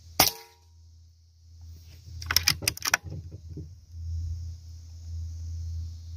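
A PCP air rifle fires once with a sharp crack and a brief metallic ring. About two seconds later its action is worked in a quick run of clicks, cocking it and loading the next pellet. A low steady rumble comes in near the end.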